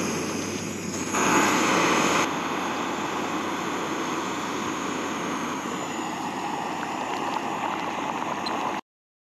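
Jetboil canister gas stove burning at full flame under a pint of water, a steady roaring hiss. It is louder for about a second near the start and cuts off abruptly near the end.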